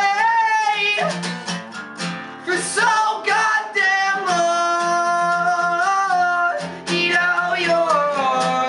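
A male voice singing over a strummed acoustic guitar, holding long, gliding notes.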